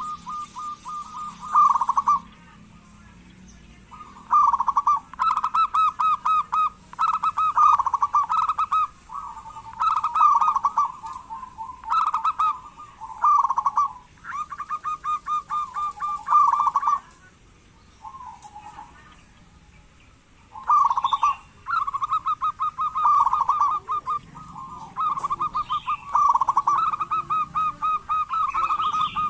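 Zebra doves (local perkutut) calling: rapid, rippling pulsed phrases of one to two seconds each, repeated again and again with short pauses, with a quieter spell about two-thirds of the way through.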